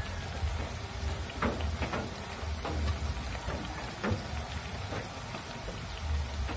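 Banana slices deep-frying in hot oil in a wok: a steady sizzle with irregular small pops and crackles, over a low rumble.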